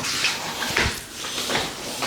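Hands rubbing and patting an oiled scalp and hair in a head massage: a string of quick, irregular swishes and pats, with one sharper knock a little under a second in.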